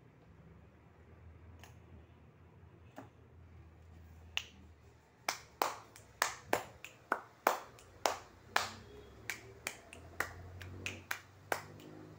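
A run of sharp clicks or taps, a few faint ones at first, then from about five seconds in an irregular series of about two a second, over a faint low hum.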